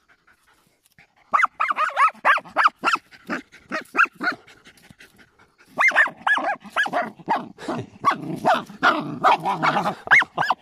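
Hunting dogs barking and yipping in quick runs at an armadillo cornered in its burrow, with growling mixed in near the end. The calls start over a second in and pause briefly in the middle.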